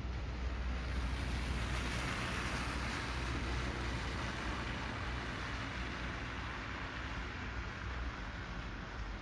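A car driving past on a wet, slushy street: the hiss of its tyres swells about a second in and fades away over the next few seconds, over a steady low rumble.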